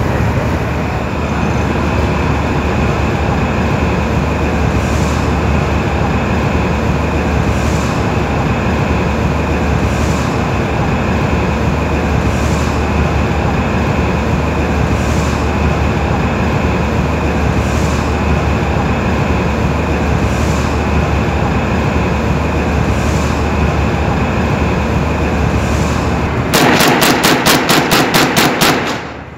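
Loud, steady rush of wind and sea over the low, constant hum of a ship's engines, heard from the deck of a patrol vessel. Near the end a fast, evenly spaced series of sharp knocks starts and keeps going.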